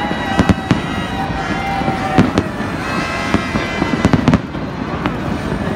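Aerial fireworks going off: sharp bangs at irregular intervals, some in quick runs of two or three, over a steady noisy background.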